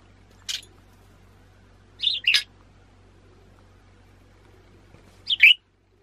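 Budgerigar chirping: one short call about half a second in, a quick pair about two seconds in, and another pair near the end.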